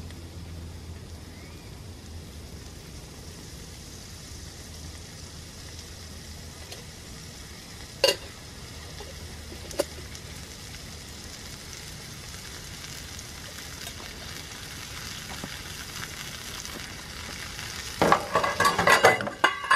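Pepperoni slices frying in a wok on a camp stove, a steady sizzle that slowly grows louder. Two sharp metal clinks come about eight and ten seconds in, and a burst of loud metal pot clatter near the end.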